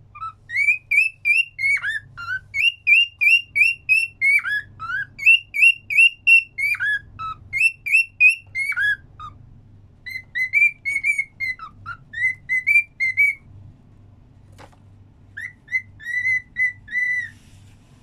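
Cockatiel whistling a tune: quick runs of short, clear whistled notes in four phrases with short pauses between them. A single short click falls between the third and fourth phrases.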